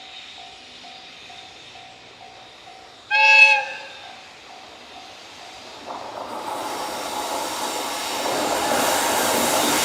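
Level-crossing alarm bell ringing about twice a second, then a short blast of a freight train's horn about three seconds in, the loudest sound. From about six seconds in, the noise of the approaching train and its wheels grows steadily louder.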